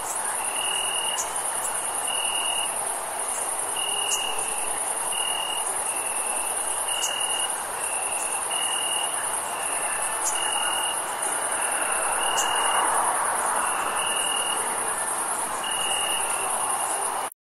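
Crickets chirping on a summer night: a steady, very high trill with a lower, short chirp repeating about once a second, over a steady background hum. The sound stops abruptly near the end.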